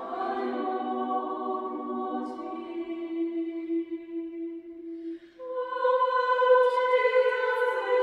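Mixed chamber choir singing a cappella in sustained chords. A held chord fades out about five seconds in, and a new, louder chord with the upper voices enters and holds.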